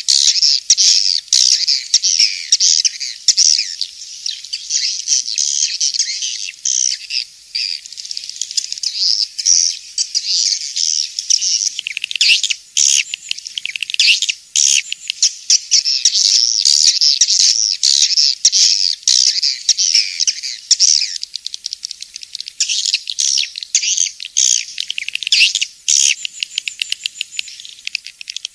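Swiftlets twittering: a dense, almost unbroken stream of rapid high chirps. This is a swiftlet lure-call recording of the kind played in swiftlet houses to draw the birds in to roost and nest.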